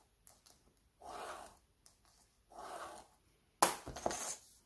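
Three soft swishes about a second and a half apart, then a sharp click about three and a half seconds in, followed by brief rustling, as an empty pen used for scoring a fold is set down on a cutting mat.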